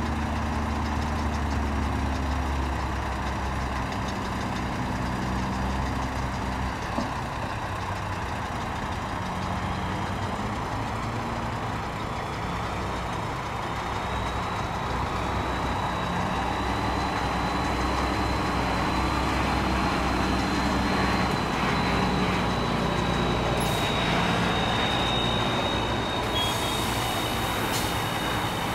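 Heavy diesel truck engine running steadily, with a thin high whine joining about twelve seconds in and a short air hiss near the end.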